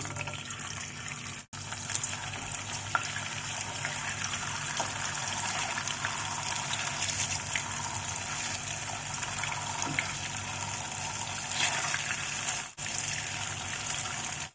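Tofu slices frying in hot oil in a frying pan, a steady sizzle that drops out for an instant twice.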